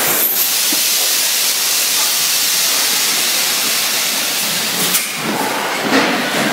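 Compressed air hissing steadily for about five seconds in a semi-automatic 20-litre bottle blowing machine, blowing or venting the bottle in its mould. It starts with a sharp click, cuts off with another click near the end, and a few clunks follow.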